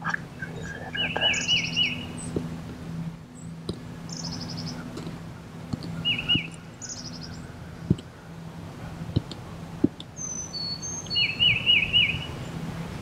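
Songbirds singing in the woods: one bird sings a phrase of three or four quick rising-and-falling whistled notes three times, with higher thin trills from others in between. A few sharp clicks in the second half, over a steady low hum.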